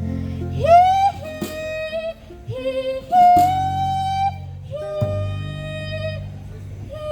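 A female singer yodeling over live acoustic string-band backing, her voice flipping upward in quick breaks between long held notes.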